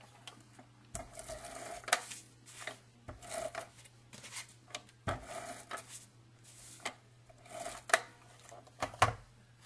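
Handheld tape runner laying strips of adhesive on the back of a cardstock photo mat: several short scraping runs, with sharp clicks of the tool on the paper, the loudest about two seconds in, near eight seconds and near nine seconds.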